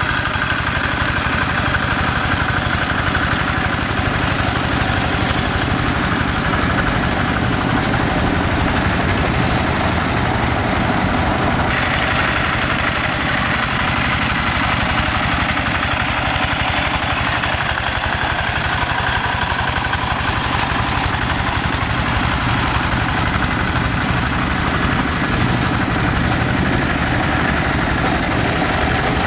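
Quick G1000 two-wheel hand tractor's single-cylinder diesel engine running steadily under load as it drags an implement through flooded paddy mud, with an even, rapid chugging.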